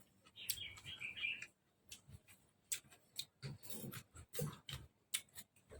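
Close-up eating sounds of beef noodle soup: a string of short wet clicks and smacks from chewing and the utensils, with a brief high squeaky sound about half a second in.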